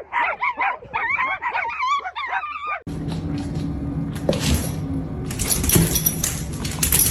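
A dog whining and yipping in a run of high, wavering calls for about three seconds, then a sudden change to a steady noisy rush with a low hum underneath.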